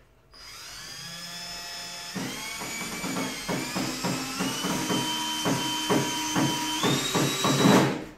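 Handheld power drill whining as it spins up, its pitch rising, then running against the wood with a quick run of clicks while it drives in. It steps up in pitch just before it stops suddenly near the end.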